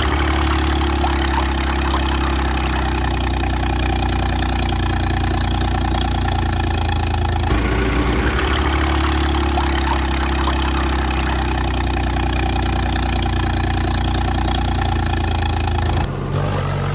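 Tractor engine running steadily at idle, a constant low hum that falters briefly about halfway through and shifts near the end.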